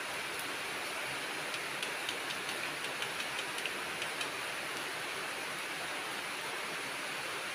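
Oil sizzling steadily in a nonstick pan as small-shrimp fritters fry, with a run of small crackles and ticks between about one and a half and four seconds in.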